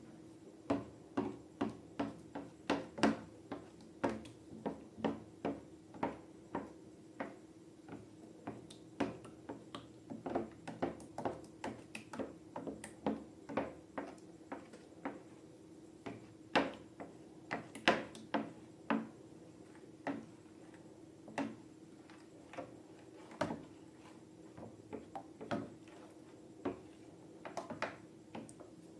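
Slime being worked by hand, giving an irregular run of sharp little clicks and pops, two or three a second, sparser in the second half, over a faint steady hum.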